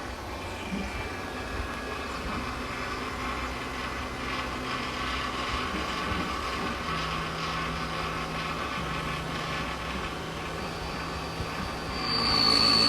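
Automatic key-cutting machine running as it cuts a FOBIK car key blade, a steady motor hum and whine. About twelve seconds in, a louder, high-pitched whine swells up.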